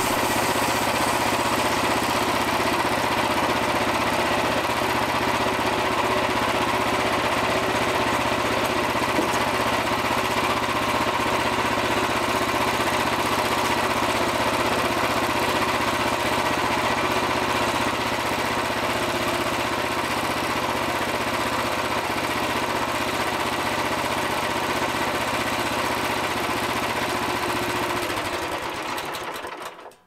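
Frontier OS27 portable bandsaw mill running steadily, its small gas engine driving the band blade through a shagbark hickory log. The sound dies away near the end.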